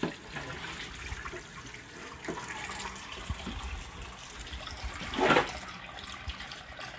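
Kitchen tap running steadily, its water splashing over raw pork ribs and a steel tray being rinsed in the sink. A brief, louder noise comes about five seconds in.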